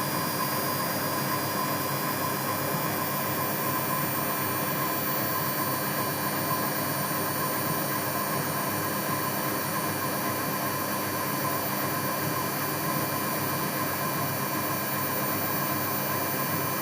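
Whirlpool AWOE 91402 front-loading washing machine spinning at a steady 600 rpm: an even whirring rush with a steady whine near the middle of its pitch range, holding level without speeding up or slowing down.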